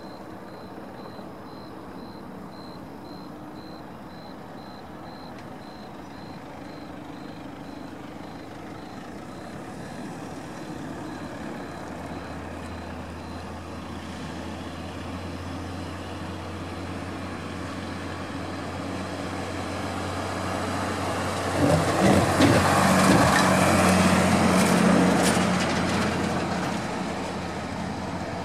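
Diesel freight locomotive approaching a level crossing with a train of empty grain hopper cars. Its engine starts as a low hum and grows steadily louder, and it is loudest in the last quarter, with some knocks as it passes. In the first half a faint, steady level-crossing warning beep repeats over it.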